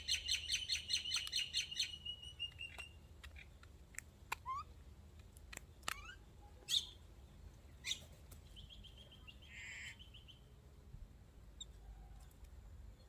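Small birds chirping: a fast run of repeated chirps for the first few seconds, then scattered single calls and a short trill about nine seconds in.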